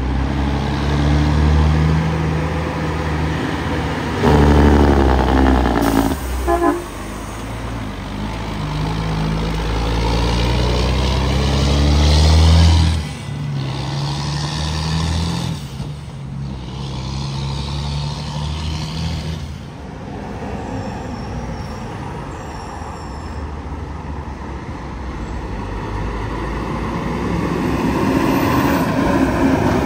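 Heavy diesel trucks passing close, first a loaded dump truck's engine working hard and loudest in the first thirteen seconds, then a tractor-trailer's engine. A brief louder, higher-pitched sound comes about four seconds in.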